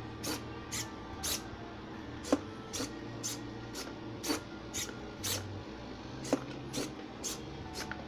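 Micro servos on the legs of a small four-legged Arduino robot whirring in short bursts as it steps, with sharp clicks of its legs and servos about twice a second.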